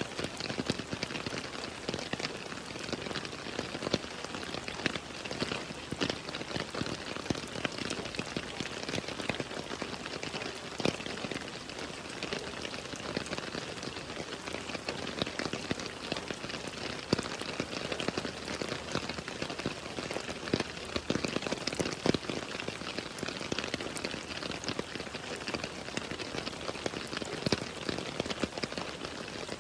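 Steady rain falling, with a dense patter of drops striking a surface, some of them louder single ticks.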